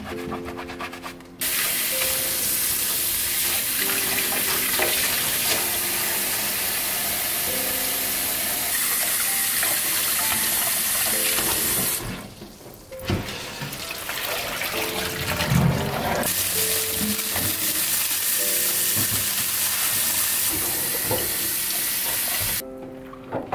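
Kitchen tap running full, water splashing onto vegetables and into a stainless steel sink basin as they are rinsed. It shuts off about halfway through, runs more weakly for a few seconds, then runs full again and stops shortly before the end.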